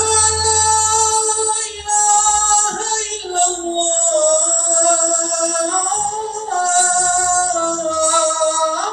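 A man's voice chanting the adhan, the Islamic call to prayer, unaccompanied: one long, drawn-out phrase whose pitch slides down and back up several times, rising again near the end.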